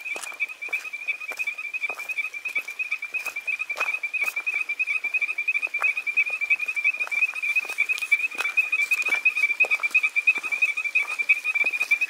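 A chorus of small frogs calling from rock pools: a continuous high, fast-pulsing trill on one steady pitch that sounds electronic, like a home security alarm.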